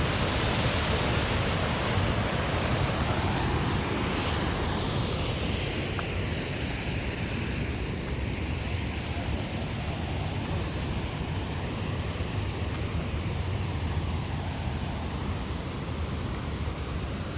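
Waterfall: a steady, loud rush of falling water that goes on without a break.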